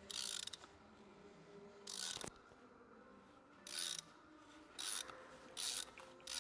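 Ratchet wrench clicking in six short bursts, a second or two apart, as the handle is swung back between turns. It is loosening the oil filter housing cap through a cap-wrench socket.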